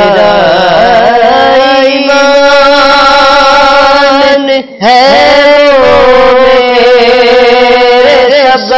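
A man singing a naat (Urdu devotional poem in praise of the Prophet) solo, in long drawn-out, ornamented notes. He stops briefly for breath a little past halfway, then carries on.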